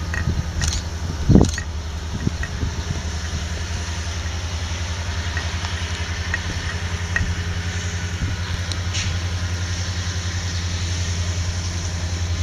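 Diesel locomotive engine heard from a distance, a low steady throb that grows slightly louder near the end as the train approaches. A single thump comes about a second and a half in.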